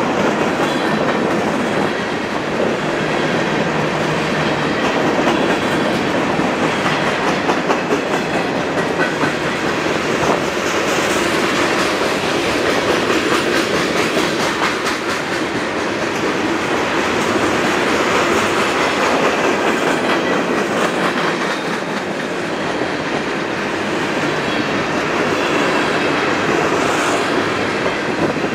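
A train rolling past, a steady rumble of wheels on rail with a repeated clickety-clack of wheels over rail joints.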